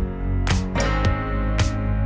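Background music: a guitar-led track with a steady beat, about two beats a second.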